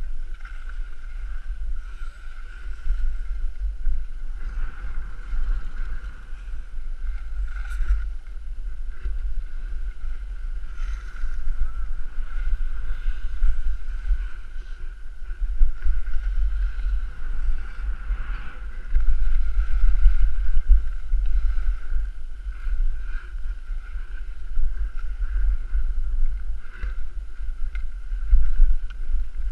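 Wind buffeting an action camera's microphone during a ski descent: a heavy, uneven low rumble with a hiss above it. Now and then skis scrape on snow, and a faint steady high tone sits underneath.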